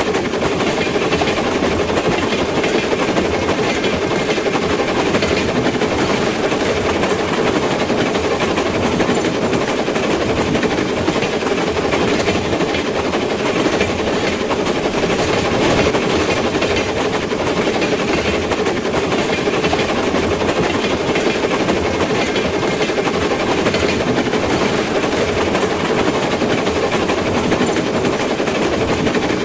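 A train running: a loud, steady, unbroken rumble with a constant drone.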